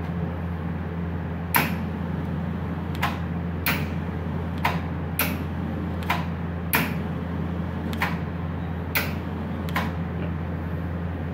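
Steady hum of a switched-on MIG welding machine, with about ten sharp, irregularly spaced clicks as the torch trigger is worked to feed welding wire out through the torch.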